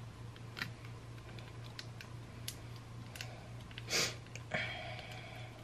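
Foil sauce sachets handled and squeezed out over a plastic cup: faint scattered crinkles and clicks, with one brief louder crinkle about four seconds in and a smaller one just after. A steady low hum runs underneath.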